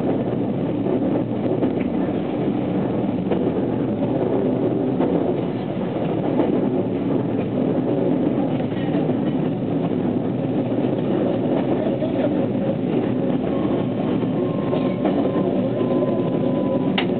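Running sound inside a JR West 287 series electric train: a steady rumble of wheels on rail and traction motors. About three-quarters of the way through, a faint whine from the Toyo IGBT VVVF inverter comes in and falls slowly in pitch as the train slows.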